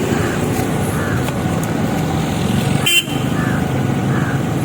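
Steady road-traffic and engine noise, with a brief sharp toot or click about three seconds in.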